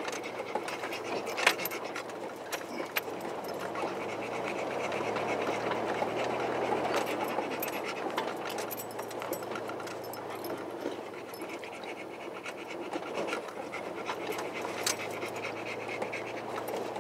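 Old 4x4 driving slowly over a dirt track, heard from inside the cab: a low engine running under the noise of tyres on dirt, with scattered sharp clicks and rattles, swelling a little partway through as it climbs.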